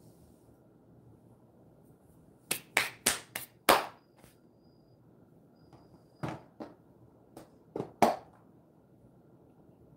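A quick run of five sharp clicks about two and a half seconds in, then several more, spaced out, between about six and eight seconds.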